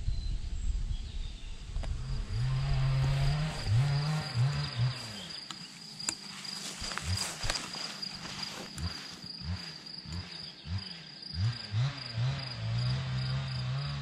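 A flying insect buzzing close to the microphone, its hum bending up and down in pitch as it circles, over a steady high-pitched insect trill.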